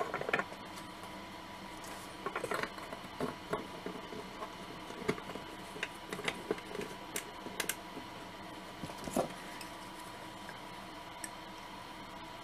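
Model-kit parts being handled and fitted onto the kit's base: scattered light clicks, taps and short scrapes of the parts and a hobby knife, over a faint steady hum.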